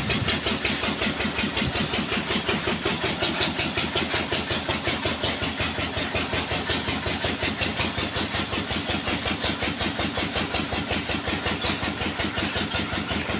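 An engine running steadily at idle, with an even beat of about five pulses a second.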